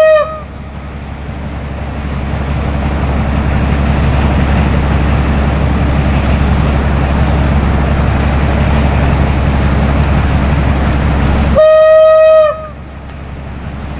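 Railway rotary snow blower running through hard-packed snow: a steady rumble of the machine with a low drone underneath. A train horn cuts off just after the start and sounds again for about a second near the end.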